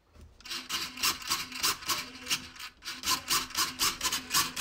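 RC boat rudder servo whirring back and forth in quick short sweeps, about three or four a second, with one brief break partway through.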